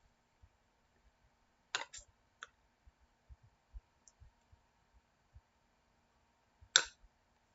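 A few short, sharp clicks in a quiet room: one a little under two seconds in, two fainter ones just after it, and the loudest near the end.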